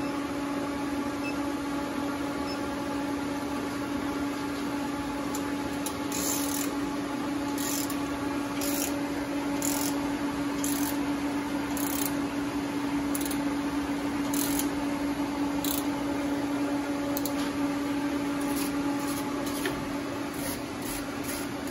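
Induction heater unit with water-cooled coil running with a steady electrical hum. From about six seconds in, short high ticks come roughly once a second.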